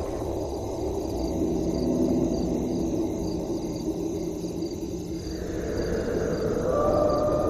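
Night ambience of crickets chirping in a steady pulsing rhythm over a low rumble. A long howl rises in pitch from about five seconds in and holds near the end.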